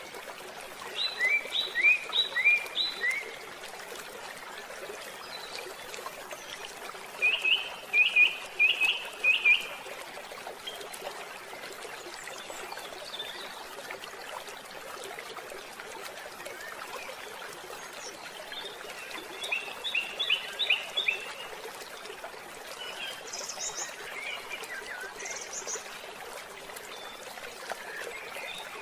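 Birds chirping in short, quick runs of about four to six notes, heard four times, over a steady background hiss.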